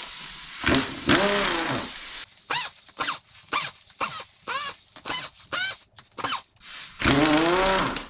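Pneumatic air impact wrench spinning out bolts on the cylinder head that have already been cracked loose. It runs in a string of short trigger bursts with a whine that rises and falls, then one longer run near the end.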